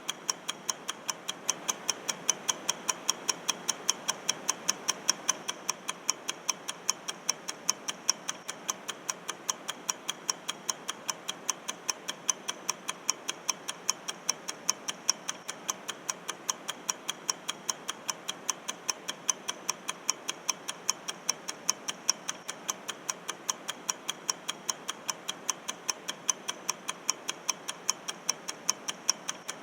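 Countdown-timer clock ticking: a steady run of evenly spaced sharp ticks, a few a second, marking the 60-second time limit.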